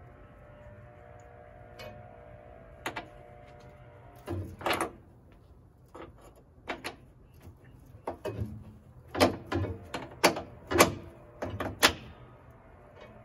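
Irregular metal clanks and knocks as a rear suspension trailing arm is worked into its mounts on a Porsche 911 body, about a dozen strikes with brief ringing. The loudest come in a quick run near the end.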